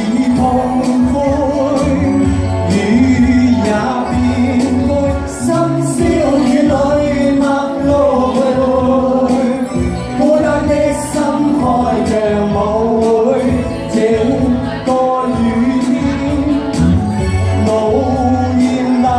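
Singing over backing music, a voice holding wavering notes above a steady bass line.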